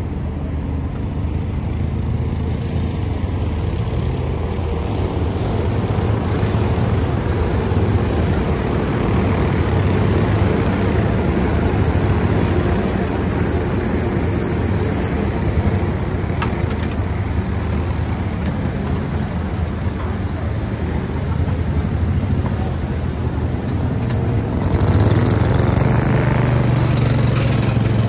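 Several racing kart engines running at low speed as the field circles the oval, with a utility vehicle's engine running close by, loudest near the end.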